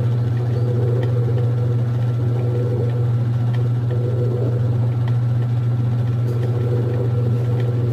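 Whirlpool washing machine in its spin cycle, a steady loud low hum with a few faint ticks. This is the noise the owner puts down to a damaged motor or capacitor, or a failing transmission in the base.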